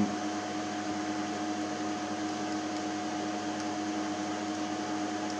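Cooling fans of a running DEC PDP-11/04 chassis giving a steady whir with an even hum. A few faint clicks come from the console keypad keys being pressed.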